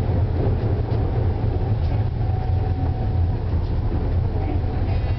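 Wuppertal Schwebebahn suspended monorail car running, heard from inside its cabin: a steady low rumble as it runs along the overhead rail into a station.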